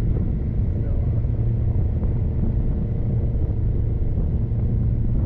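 Small outboard motor running steadily, pushing the sailboat in under power with the sails down.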